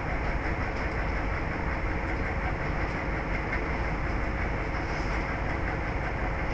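Steady, even rushing noise with a faint constant hum, unchanging throughout.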